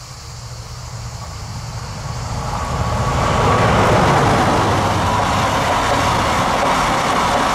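Freight train approaching and passing close by: the locomotive's low rumble grows steadily louder over the first three seconds, then the noise of a long line of container wagons rolling past holds steady and loud.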